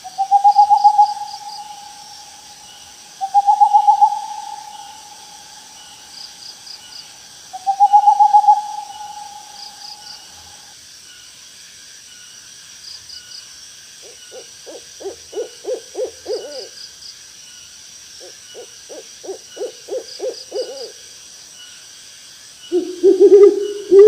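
Bird calls over a faint, steady high buzz. Three long hooting notes come in the first ten seconds, each opening with a quick trill and then held. Later there are two runs of about nine quick hoots each.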